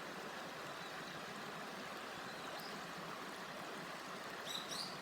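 River water babbling in a steady rush. A bird chirps a few times near the end.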